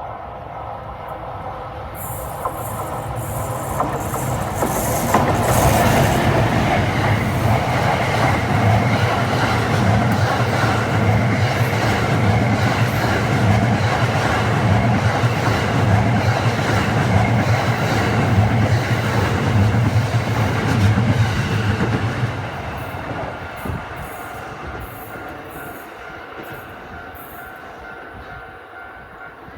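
EF510 electric locomotive and the Cassiopeia sleeper train's cars passing over a level crossing, with wheels clacking over the rail joints. The noise builds over about five seconds and stays loud for about fifteen, with a steady low hum, then dies away over the last several seconds as the train recedes. A level-crossing bell rings steadily.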